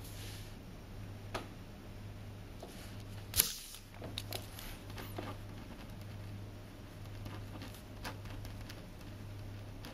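Paper and marker-pen handling on a tabletop: small scattered clicks and a marker writing on paper, with one sharp knock about three and a half seconds in, over a low steady hum.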